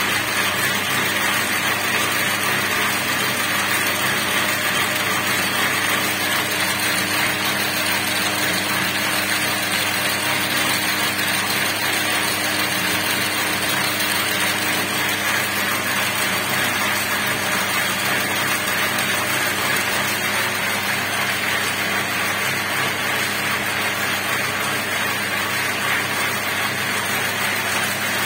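Cord-braiding machine running steadily: bobbin carriers circling on the track and gear-driven take-up rollers turning, a continuous, even mechanical clatter.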